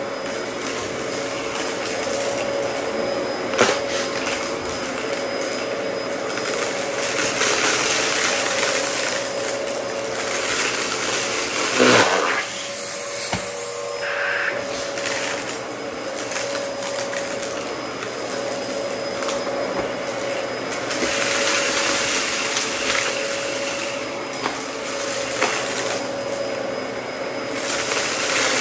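Dyson DC14 upright vacuum running with a steady hum, its brushroll crunching and rattling as it picks up small scattered debris from carpet and concrete. A sharp knock comes about twelve seconds in, with a smaller click near four seconds.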